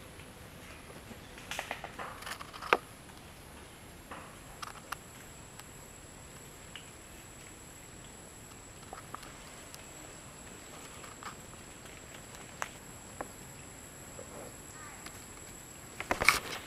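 Macaques moving over dry leaf litter: scattered soft rustles and a sharp click a little under three seconds in, then a louder burst of rustling near the end as an adult walks past close by.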